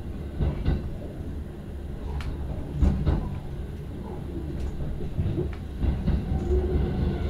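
Inside a commuter train car running on the line: a steady low rumble of the wheels and running gear, with irregular sharp knocks as the wheels cross rail joints, the loudest a little under three seconds in.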